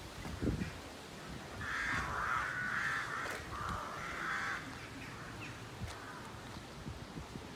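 Crows cawing: a run of caws about two to three seconds in, then one more shortly after.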